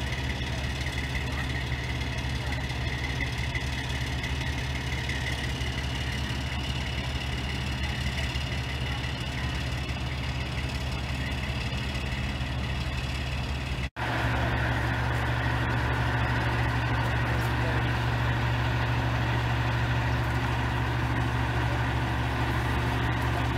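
Mobile crane's diesel engine idling steadily, a low even hum. It cuts out for an instant about two-thirds of the way through, then carries on a little louder.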